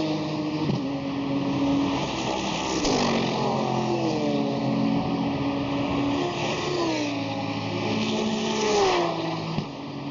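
GT racing cars at full race speed, one after another, several engines sounding at once; their engine notes fall in pitch as cars go by about three seconds in, again around six to seven seconds, and once more near the end.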